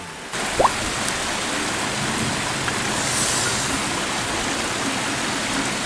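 River water rushing steadily over rocks. The sound starts abruptly just after the beginning and stays even throughout.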